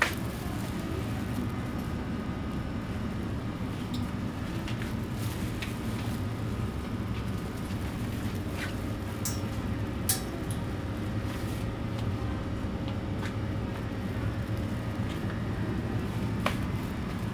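Steady low hum of refrigerated display freezers and store ventilation, with scattered light clicks and knocks. A sharp tick about ten seconds in is the loudest moment.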